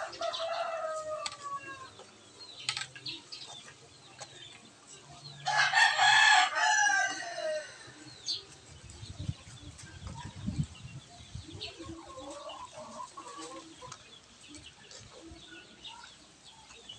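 A rooster crows, one long loud call about five and a half seconds in that falls in pitch at its end, after a shorter falling call at the start. Between the calls are light clicks of a metal spatula against the wok over the faint sizzle of frying.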